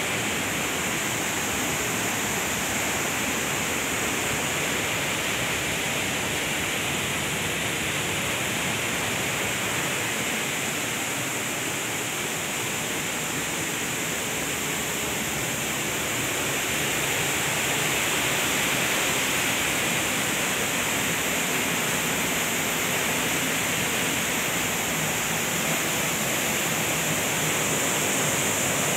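Waterfall rushing steadily into a pool, a little louder from about halfway through.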